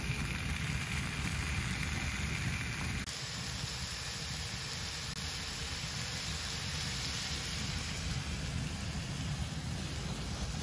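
Steady sizzling hiss of pork belly frying in a cast-iron skillet, dropping slightly in level about three seconds in.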